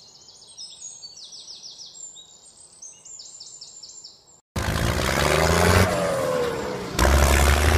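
Birds chirping in quick, high calls. About four and a half seconds in, a loud engine sound cuts in abruptly over a rushing noise, its pitch shifting a couple of times.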